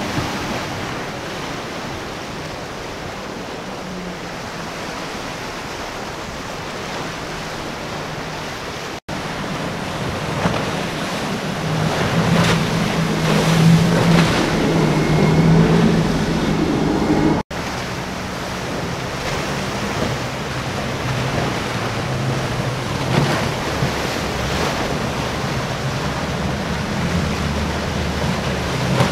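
Waves and churning surf with wind on the microphone, under the low drone of outboard-powered center-console boats running through rough water. The engine drone and hull spray are loudest about halfway through, stop abruptly, and then a second boat's engine runs on under the surf.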